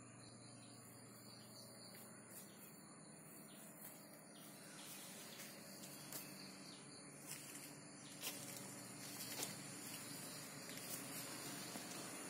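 Faint garden ambience: a steady high-pitched insect trill, with scattered small clicks and rustles now and then.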